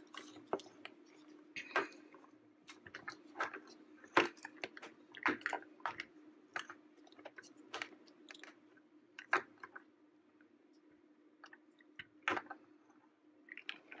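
Hands handling a plastic toy excavator and lumps of Play-Doh: scattered small plastic clicks and knocks with soft squishes of the dough, over a faint steady hum.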